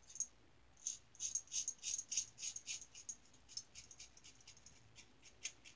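Star Super Six lather-catcher safety razor with a single-edge Gem blade cutting through lathered stubble: a run of short, scratchy strokes, about three or four a second.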